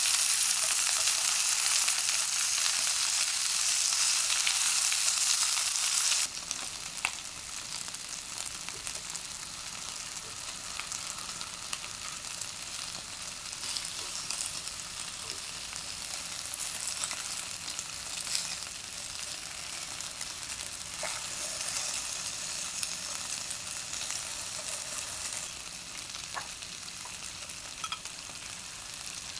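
Chicken and lotus root sizzling in a frying pan as they are stir-fried, with scattered clicks of a utensil against the pan. The sizzle is loud at first, then drops suddenly to a quieter, steady level about six seconds in.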